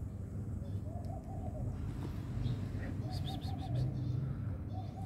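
A dove cooing in three soft phrases spaced about two seconds apart, with a brief run of high chirps from a small bird about three seconds in, over a steady low background hum.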